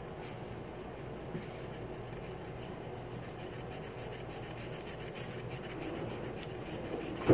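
Sharpie marker being drawn back and forth across a surface, a continuous scratchy rubbing, with a short knock near the end.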